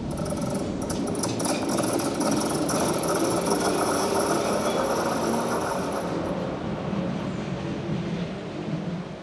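Tram pulling away along the track, its motors and steel wheels on the rails running with a rattle and high squeaky clicks. The high squeaks die away about six seconds in and the sound fades as the tram moves off.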